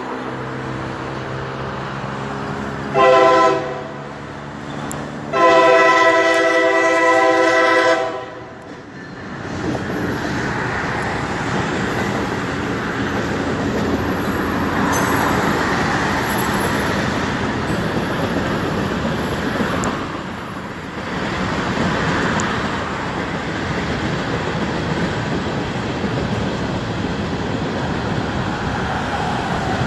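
Diesel locomotive's air horn sounding a short blast, then a long one about five seconds in. The rumble of the freight train rolling past follows, its wheels and cars running on the rails.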